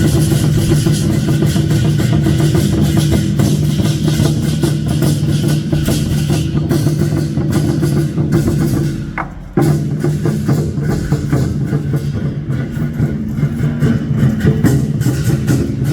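Loud procession music: drums and percussion beating over a steady low held tone. The held tone breaks off for a moment a little past nine seconds in, then resumes.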